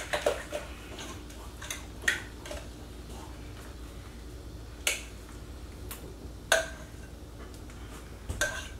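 Spoon clinking and scraping against a large measuring cup while a thick, creamy mixture is scooped out in spoonfuls, with a few sharp clinks spread a second or more apart.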